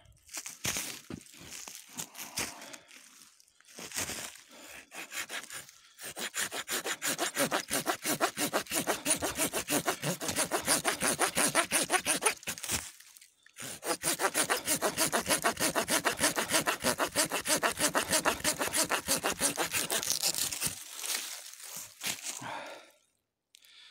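Small folding hand saw cutting through a dry fallen branch of hard, frozen wood. A few scattered strokes start the cut, then fast, even back-and-forth strokes follow with a short break in the middle. The strokes tail off near the end as the branch is cut through.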